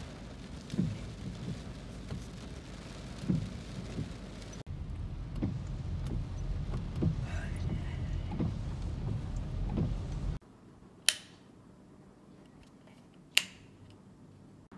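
Heavy rain on a car heard from inside the cabin, over a low rumble of the car and traffic with a few dull knocks; the rumble gets louder about four seconds in. Then, in a quiet room, a wall light switch is clicked twice, two sharp clicks about two seconds apart.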